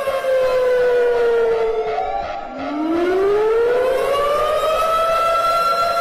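Warning siren with a pitched wail falling in pitch and fading about two seconds in, then winding back up and holding a steady tone from about five seconds in.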